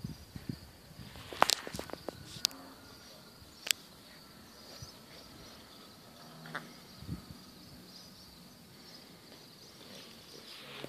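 Faint steady insect buzz, with a few sharp clicks in the first four seconds and a couple of brief low sounds about six and seven seconds in as two dogs tussle over a plush toy.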